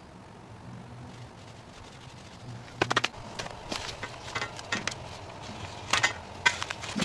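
Sharp clicks and knocks, starting in a quick cluster about three seconds in and then coming scattered, as a coil of black plastic water pipe is handled and pulled up. Before that there is only a faint low hum.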